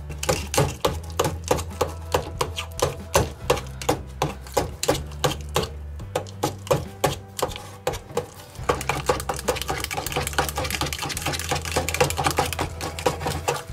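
Small wire whisk clicking and scraping against a little stainless steel saucepan as mashed potatoes are whipped, a few strokes a second, quicker and denser in the last five seconds. A low hum runs under it and drops out for a couple of seconds midway.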